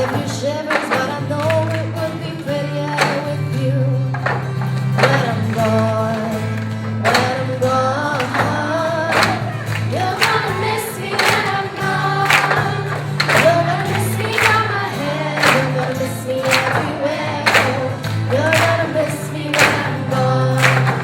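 Music with several voices singing together over sustained bass notes and a steady beat.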